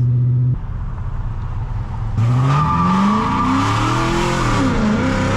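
Chrysler 300C's 5.7-litre HEMI V8 running, then about two seconds in revving hard on a launch, its pitch climbing, dipping at a shift near the end and climbing again. The tyres squeal as they break loose in a short peel-out.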